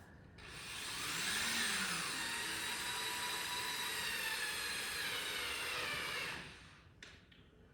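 Power drill driving a long screw into the wall framing: the motor whines up to speed, runs steadily for about five seconds with its pitch sagging slightly under load, then stops.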